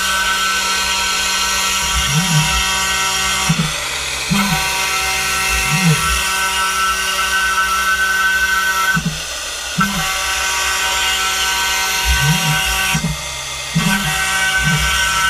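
High-speed CNC milling spindle whining steadily over a hiss of cutting as it machines carbon fibre; the whine drops out briefly three times. Short low whirs that rise and fall in pitch come again and again beneath it, typical of the machine's axis motors moving the cutter.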